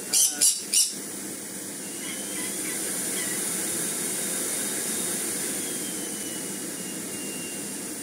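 Miele Blizzard CX1 cylinder vacuum running on its newly fitted 1600-watt replacement motor: a steady rushing hum with a faint high whine, swelling a little in the middle and easing off again. Three sharp knocks sound in the first second.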